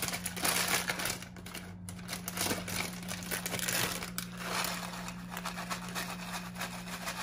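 A bag of batata palha (shoestring potato sticks) crinkling as it is handled and poured over a plate, in irregular rustling spells.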